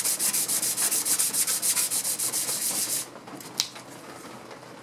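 Bench plane blade stroked back and forth on 400-grit sandpaper: a rapid scraping rhythm of about five strokes a second, knocking the burrs off and putting a micro bevel on the edge. The strokes stop about three seconds in, followed by a single light click.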